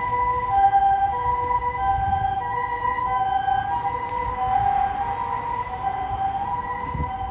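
Emergency vehicle's two-tone siren, a Japanese-style hi-lo 'pee-poh' alternating steadily between two pitches, over a low vehicle rumble, easing off slightly toward the end.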